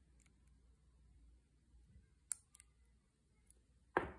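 Metal nail clipper cutting through a plastic artificial nail tip: one sharp click about two seconds in, with a couple of smaller ticks after it. Near the end comes a duller knock as the clipper is set down on a paper towel.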